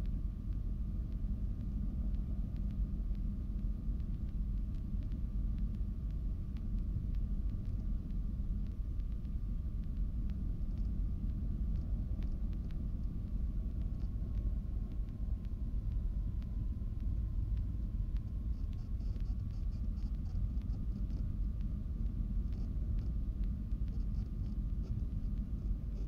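Cessna 310Q's twin six-cylinder piston engines idling as the plane rolls out and taxis slowly after landing, a steady low rumble heard inside the cockpit. A faint steady whine runs over it, dipping slightly in pitch about two-thirds of the way through.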